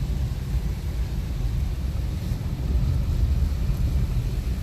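Steady low rumble of a car heard from inside the cabin, with a faint even hiss over it.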